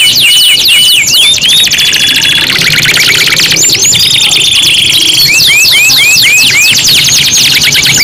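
Domestic canaries singing, several at once: fast rolling trills of repeated high notes and quick upward-sweeping whistles, with a steady buzzing trill held for about a second and a half around the middle.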